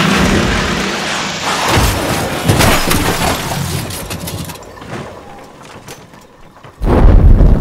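Cinematic crash sound effects: dense crashing and shattering with several hard hits, dying away, then a sudden loud, deep boom about seven seconds in.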